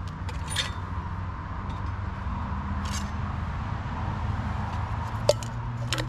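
Steady low drone of distant road traffic, with a few short clicks and clinks from a camping stove cup and a small mug being handled, the sharpest about five seconds in.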